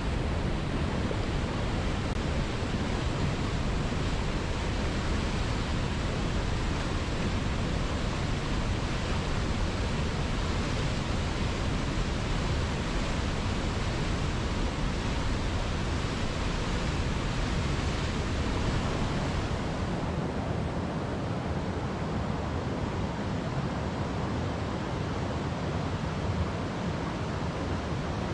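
Waterfall: a steady, even rush of falling water. About two-thirds of the way through it changes abruptly to a slightly thinner rush with less deep rumble, as from a different fall.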